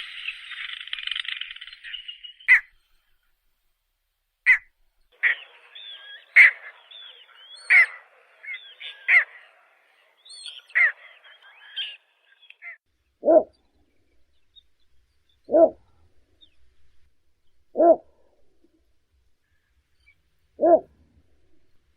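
Heron-family bird calls: a frog chorus fades out in the first two seconds, then a run of sharp, downslurred calls for about ten seconds, followed from about 13 s by short, low calls repeated about every two seconds.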